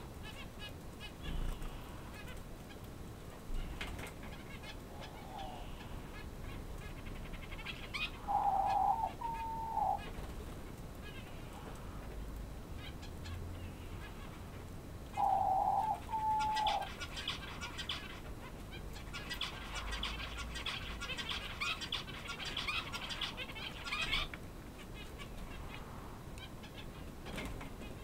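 Male Chinese painted quail (king quail) calling twice, each call a short loud note followed by a brief second note, with fainter high twittering of small birds in between.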